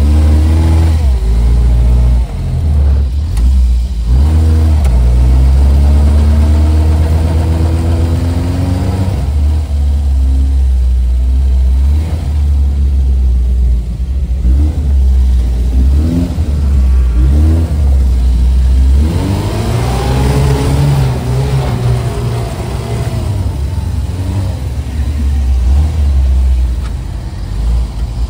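Off-road vehicle's engine running hard over rough terrain, its revs rising and falling again and again, with a strong surge of revs about two-thirds of the way through.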